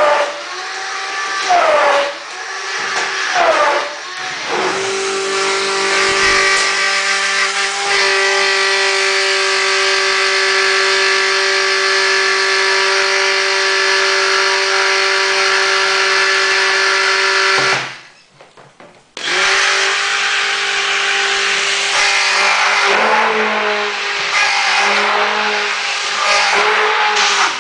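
Hand-held electric immersion blender running in a bowl of water while powdered slime thickener is stirred in. Its motor whine dips and recovers several times in the first few seconds, then holds steady; it stops for about a second some 18 seconds in, starts again, and its pitch wavers near the end.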